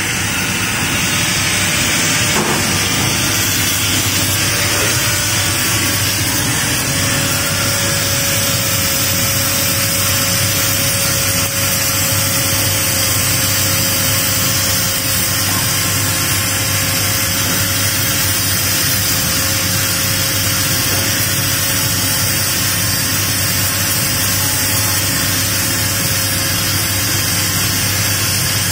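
Electric angle grinder grinding a rusty steel flange, a loud steady grind with a thin whine that holds one pitch.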